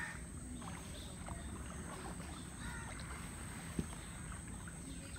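Kayak paddling through calm water: faint paddle strokes and water lapping against the hull, with a single light knock about four seconds in.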